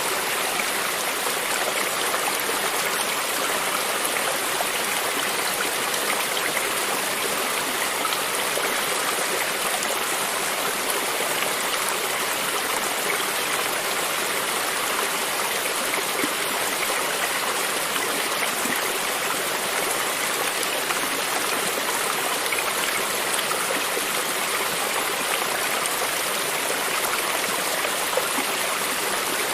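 A creek's water running steadily over stones, an even rushing with a fine trickling and splashing texture.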